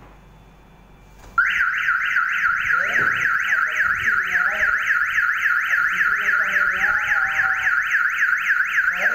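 Electronic siren of a home intruder-alarm system going off when a window fitted with a sensor is opened, showing that the alarm works. It starts suddenly about a second and a half in and warbles loudly and rapidly, about six sweeps a second.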